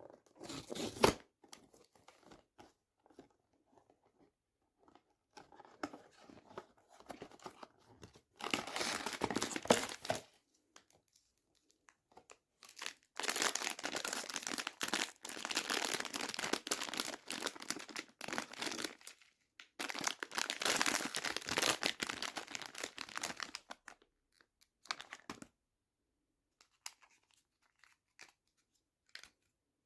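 Blind-box packaging being opened by hand: the wrapper crinkling and tearing in several long bursts, with quieter handling noises between.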